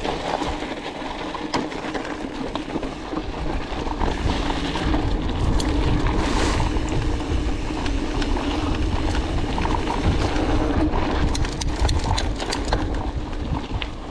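Mountain bike rolling down a dirt and gravel singletrack: a steady noise of the knobby tyres on the trail, with wind buffeting the microphone. A quick run of sharp clicks and rattles comes near the end.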